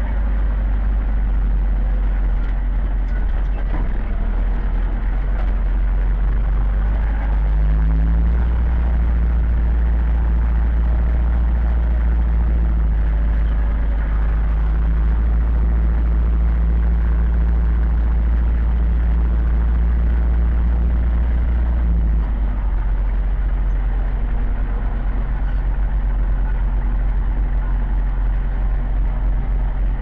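Zetor 7011 tractor's four-cylinder diesel engine running while driving, heard from inside the cab. The revs rise slightly about a quarter of the way in and drop lower about two thirds of the way through.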